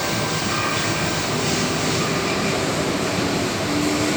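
Sydney suburban electric train running at speed, heard from inside the carriage: a steady rumble and hiss with faint steady tones.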